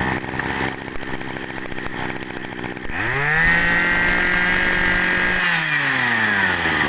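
Maruyama Big M 23cc two-stroke brush cutter engine idling, then revved up sharply about three seconds in. It holds high revs for a couple of seconds, then drops back down to idle near the end.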